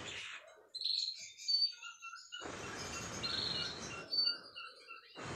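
Canaries chirping in short, high calls throughout. In between comes a puff of breath blown close to the microphone, about one and a half seconds long around the middle, with the tail of another right at the start: air being blown on the bird's belly feathers to part them.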